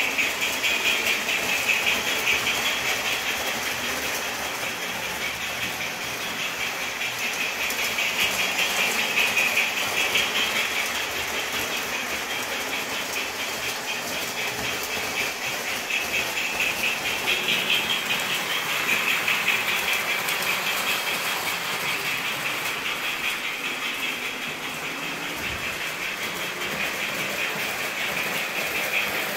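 O-scale model trains running on three-rail track: a steady clatter and whir of wheels and motors on the rails. It swells and fades every several seconds as trains come near and move away.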